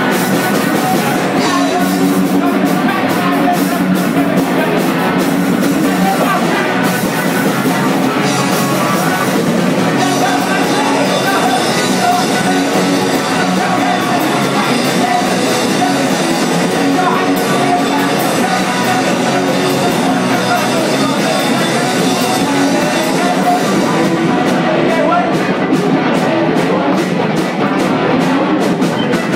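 Rock band playing live and loud: electric guitars, drum kit and a sung lead vocal, steady throughout.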